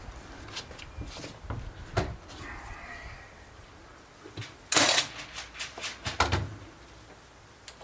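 Clicks and knocks of a metal bracket being handled and set against a wooden ledger board, then a short burst from a cordless driver running a screw into it about five seconds in, followed by a few more quick clacks.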